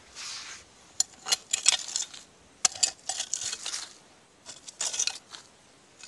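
A digging tool scraping through dump debris, with sharp clinks of glass shards knocking together, in several short bouts with brief pauses between.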